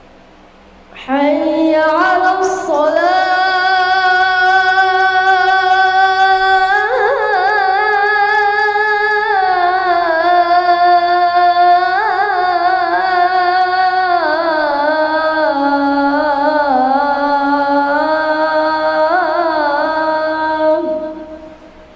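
A child's voice singing one long, ornamented phrase of the adhan (Islamic call to prayer) in the Kurdi maqam. The note is held for about twenty seconds with wavering turns and slides, starting about a second in and fading out near the end.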